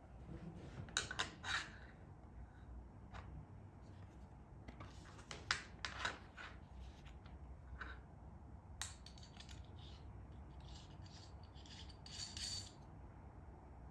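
Faint handling noise from unpacking: scattered rubs, scrapes and small clicks in little clusters, over a low hum.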